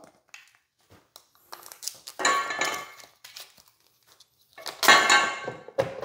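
Hard plastic parts knocking and scraping against each other as a hair dryer is seated onto a wall-mounted plastic holder and its cables are handled. There are light clicks, then two longer scraping rattles, about two seconds in and about five seconds in.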